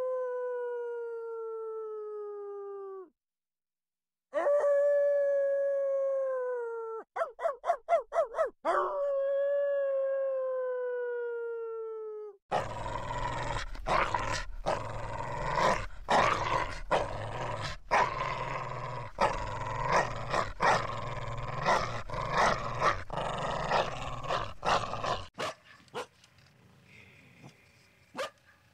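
A dog howling: three long howls, each sliding slowly down in pitch, the second broken by a quick run of short yelps. Then comes a long stretch of noisier barking mixed with howling, with a low hum beneath, which stops sharply and leaves only faint sounds near the end.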